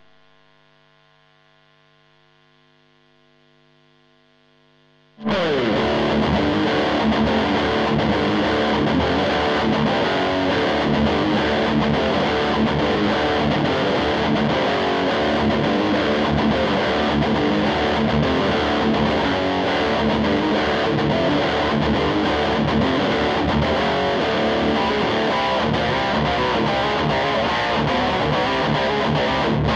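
Electric guitar played through a Blackstar HT5R tube combo amp with distortion. A held note rings on faintly for about five seconds, then loud distorted playing starts suddenly and carries on steadily.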